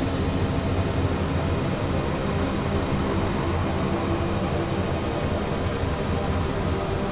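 Experimental ambient drone music: a dense, unchanging wash of low rumble and hiss with no beat or melody, much like the inside of a running engine or aircraft.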